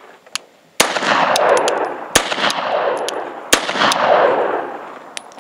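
Roth-Steyr 1907 pistol firing 8mm Steyr rounds: three shots about a second and a half apart, each trailing off in a long echo.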